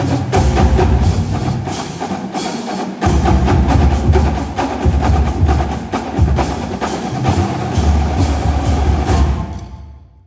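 A marching drumline's battery (snares, tenors and tuned bass drums) playing a loud, driving passage, with the bass drums sounding stepped low notes at different pitches. The playing stops about nine and a half seconds in and rings off.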